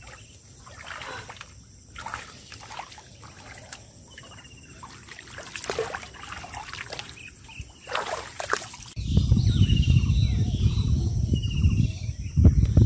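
Feet wading and sloshing through shallow muddy paddy water, with splashes about two, six and eight seconds in. About nine seconds in the sound changes abruptly to a loud low rumble, with birds chirping over it.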